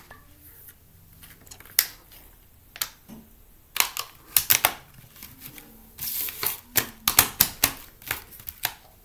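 Irregular sharp clicks and taps of small makeup items being handled, likely a lip gloss tube and its cap. A few clicks come early, then they bunch into quick clusters from about four seconds in, with a short rustle around six seconds.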